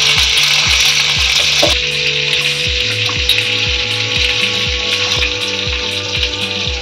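Pieces of red snapper sizzling steadily as they shallow-fry in oil in a pan, nearly done. Background music with a steady low beat plays over it.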